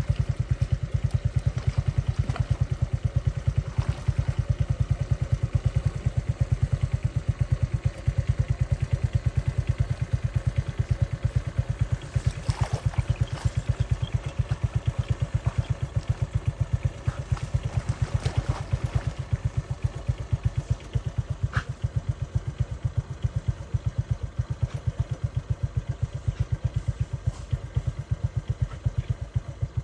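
A small engine running steadily, a rapid, even low thumping that does not change in speed, with a few faint brief higher sounds over it.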